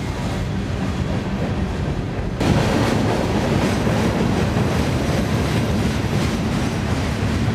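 Freight train cars rolling past at close range, their steel wheels running on the rails with a steady low rumble. About two and a half seconds in, the sound suddenly gets louder.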